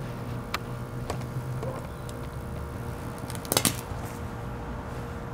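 Hamilton Beach blender motor running through a deliberate burnout with a steady hum, broken by sharp snaps as it sparks: a couple of single snaps early, and a loud cluster of them about three and a half seconds in.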